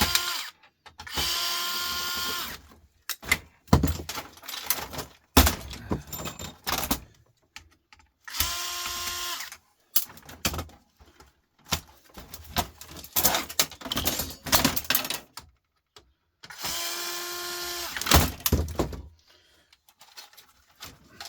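An electric power screwdriver running in three steady bursts of one to two seconds each, backing screws out of computer parts. Knocks and rattles of metal and plastic parts being handled come between the bursts.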